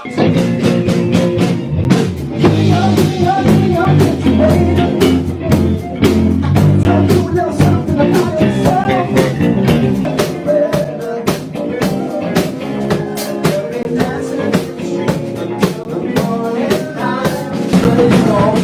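Rock music with a drum kit, a low bass line and singing, cutting in suddenly.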